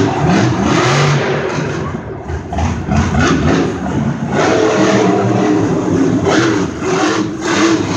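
Monster truck's supercharged big-block V8 revving hard during a freestyle run, its pitch rising and falling as the throttle is worked.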